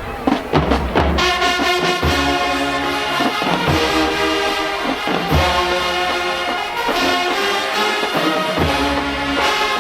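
Marching band playing: a few drum strikes in the first second, then the brass section comes in with loud, sustained chords over bass drum hits every second or two.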